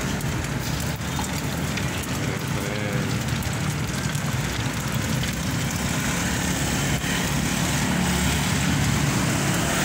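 Skewers of sempol deep-frying in a wok of hot oil, a steady crackling sizzle like rain, over a low steady rumble.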